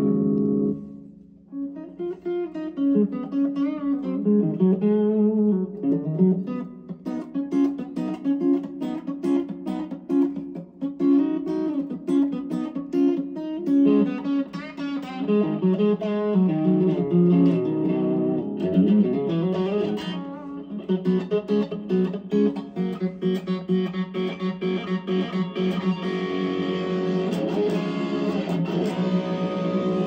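Electric guitar played through a BJpress Soul Clone, a Klon Centaur-style overdrive pedal switched on, into a Fender Mustang amp's Vox AC30 simulation: lead lines of picked notes and bends after a brief gap about a second in. It ends on a chord left ringing.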